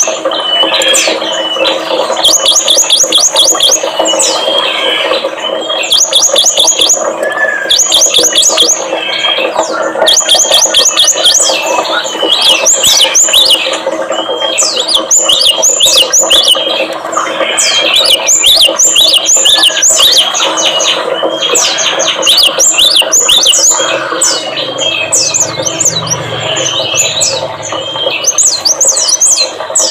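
Small songbirds singing in a dense, overlapping mix: fast trills of repeated high notes broken by quick up-and-down chirps. This is a lure-song mix of cinereous tit, prinia and white-eye song, played to get caged birds to answer and sing.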